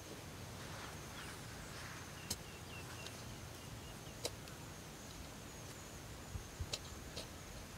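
Faint rural outdoor background: a steady high insect drone and a short run of bird chirps about two seconds in, broken by a few sharp clicks and some soft low thuds near the end.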